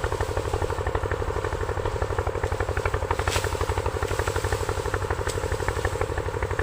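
A motor engine running steadily with a fast, even chugging of about seven pulses a second.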